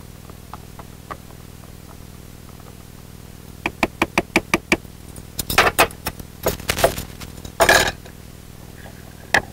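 A spoon stirring coffee grounds into hot water in a GSI JavaPress French press container, clinking against its sides in a quick run of about eight clicks, followed by louder scattered clatters of the utensil and gear.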